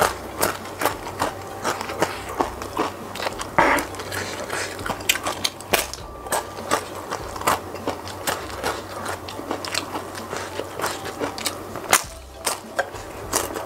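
Close-miked crunching and chewing of crispy fried tempeh chips topped with raw green bird's-eye chilies. Sharp crackles come several times a second, with a louder bite about four seconds in and another near the end.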